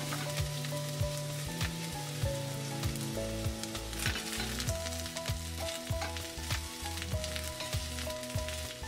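Sliced onions sizzling in hot oil in a stainless steel pan as a spoon stirs them. Background music with a steady beat plays throughout.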